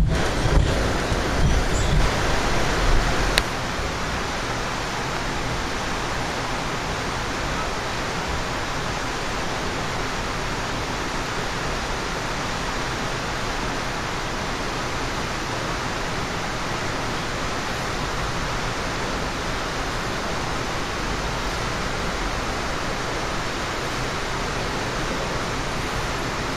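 Steady rushing noise of a moving Amtrak Empire Builder passenger train, heard from inside the car. Low rumbling bumps in the first few seconds end with a sharp click about three seconds in, after which the noise settles a little quieter and even.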